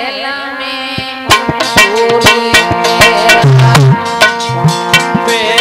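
Instrumental interlude of a Hindi devotional song (bhajan): held melodic tones, joined about a second in by a quick hand-drum rhythm and a bending melody line, with a few deep drum thumps.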